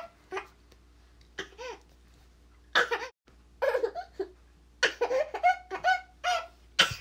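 A baby laughing and giggling in short repeated bursts.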